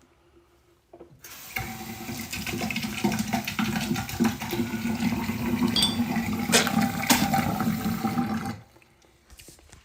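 Water rushing in a bathroom, starting about a second in and cutting off suddenly after about seven seconds.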